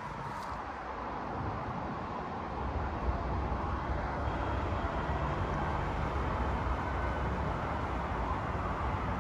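Steady hum of road traffic, a constant wash of vehicle noise with no single vehicle standing out, growing slightly louder after the first few seconds.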